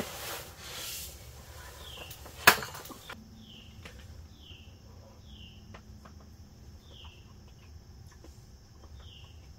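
Utensil clicking and scraping against an aluminium mess tin while eating, with one sharp clink about two and a half seconds in and small ticks after. Behind it, a short falling chirp repeats every second or so.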